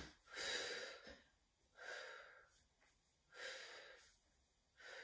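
A woman breathing in a steady rhythm, four short breaths about a second and a half apart, in time with the leg changes of a Pilates single leg stretch.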